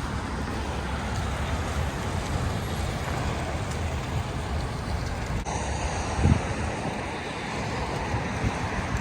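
Steady outdoor street noise: a low rumble under a hiss, with one short low thump about six seconds in.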